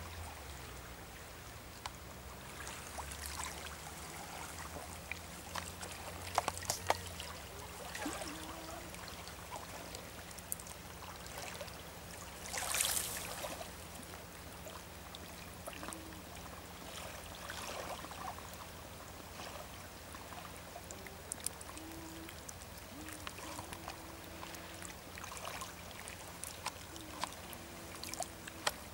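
Shallow water lapping and trickling at the shore, with small splashes and crackles from ducks paddling and dabbling close by, one louder splash about halfway through. A faint low hum runs under the first half.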